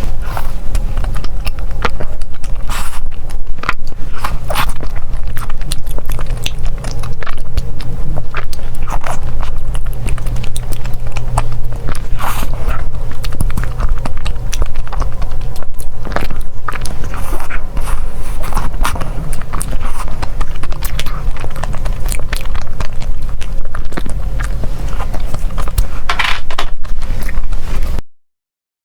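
Close-miked eating of desserts: biting and chewing with many irregular wet clicks and crackles over a steady low hum. The sound cuts out for under a second near the end.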